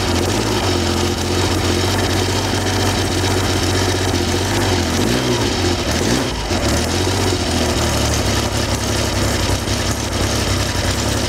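Triumph Trident T160's 750 cc three-cylinder engine running cold just after starting, held on a little throttle to warm up because it won't tick over well when cold. The revs rise and fall briefly about five seconds in.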